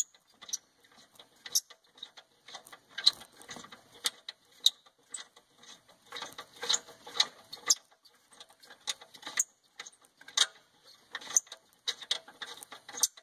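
Exhaust gas temperature sensor on a 2014 Chevrolet Cruze Diesel being unscrewed by hand from the exhaust: a run of irregular light clicks and scrapes from the sensor's threads and fingers on metal, several a second.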